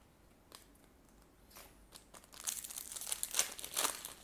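Foil wrapper of a Cardfight!! Vanguard booster pack crinkling and tearing open by hand, starting about two seconds in after a few light handling clicks.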